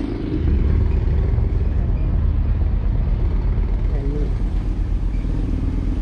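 Engine of a small vehicle running steadily as it rides, a continuous low rumble mixed with road noise.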